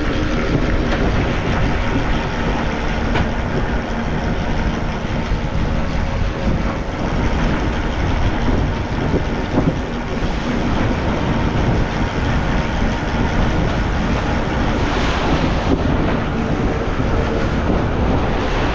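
Steady wind buffeting the microphone over the rush of open-ocean waves around a sailing catamaran under way.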